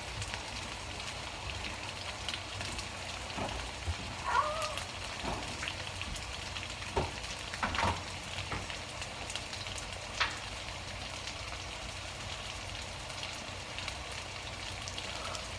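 Chicken frying: a steady sizzle with scattered small pops and crackles.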